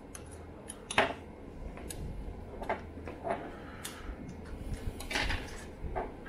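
Scattered small clicks and taps of hands handling parts and tools: a hex screwdriver and metal tweezers on a wooden tabletop and a 3D-printed plastic mount against an aluminium extrusion. The sharpest click comes about a second in.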